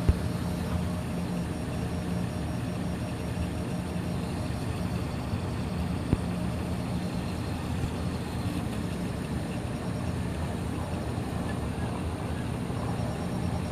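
Ord-Bot 3D printer running mid-print: a steady mechanical hum from its stepper motors and the hotend's cooling fan. Two sharp clicks, one right at the start and one about six seconds in.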